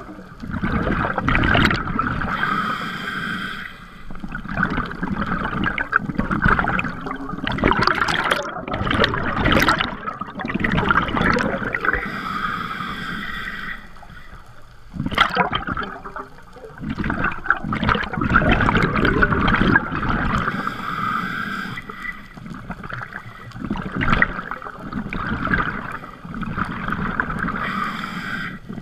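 Scuba regulator breathing heard underwater: a hissing inhale through the regulator about every eight or nine seconds, each followed by a long, gurgling rush of exhaled bubbles.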